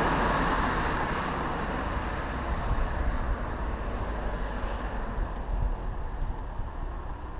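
Wind buffeting the microphone of a camera on a moving bicycle, a steady uneven low rumble with road noise, louder for the first couple of seconds.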